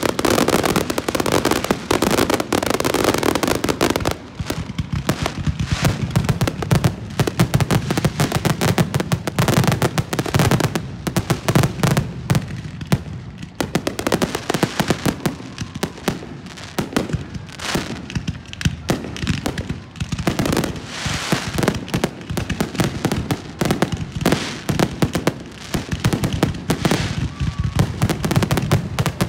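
Aerial fireworks going off in a dense, continuous barrage: many sharp bangs and crackles a second with no break, heaviest in the first few seconds.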